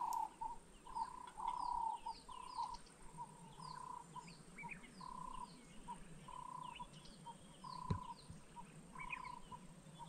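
Wild birds calling. One bird repeats a short note at a steady pitch about once a second while others give many quick, high chirps that slur downward. A single sharp tap sounds about eight seconds in.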